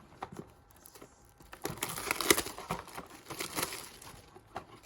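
Crinkling and tearing of packaging as a trading-card blaster box is opened by hand, a dense, irregular crackle that is loudest in the middle.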